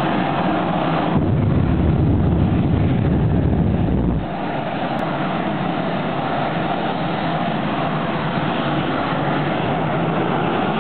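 Jet dragster's turbine engine running at the starting line, a loud steady roar that swells deeper and louder for about three seconds from about a second in, then settles back to a steady roar.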